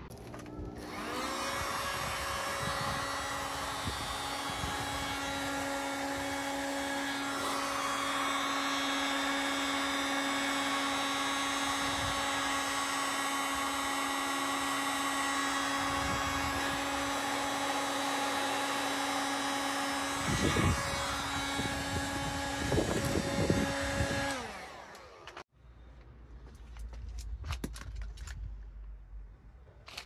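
Electric heat gun running steadily with a fan hum, aimed at the cylinder of a Laser four-stroke model aircraft engine that has no compression, to free a piston ring or valves that the owner suspects are gummed up with castor oil. It stops abruptly after a few knocks, leaving faint clicks.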